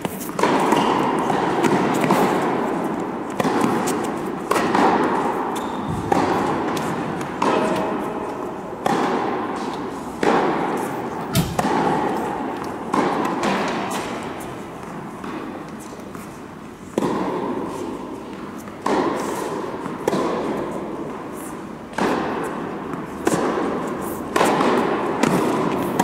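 Tennis rallies: racket strikes and ball bounces about once a second, each ringing out in a long echo of the large indoor hall, with a short lull past the middle between points.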